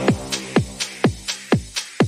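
Electronic dance background music with a steady kick drum, about four beats a second. A held synth chord fades out right at the start.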